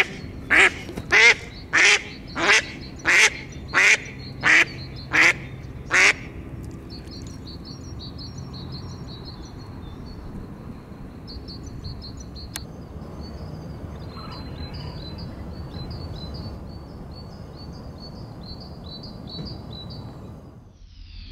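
A duck quacking: a run of about ten loud, evenly spaced quacks, roughly one and a half a second, that stops about six seconds in. Faint high chirping follows.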